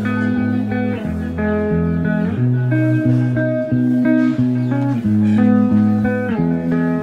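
Guitar-led background music with a bass line, added over the footage in editing.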